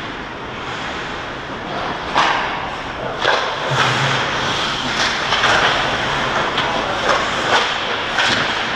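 Ice hockey play in front of the goal: skates scraping the ice, with several sharp clacks and thumps of sticks and puck.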